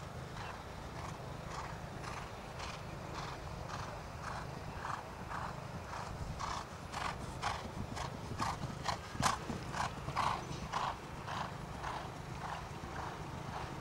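A horse cantering in a show jumping ring, its stride beating about twice a second. The beat grows louder in the middle, with one sharp knock about nine seconds in.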